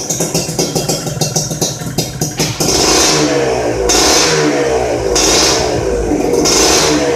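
Modenas Dinamik 120's two-stroke single breathing through an RRM (Rudi Racing Muffler) aftermarket exhaust: idling with a rapid, even pulse, then revved up sharply about two and a half seconds in and held high with the throttle surging about four times.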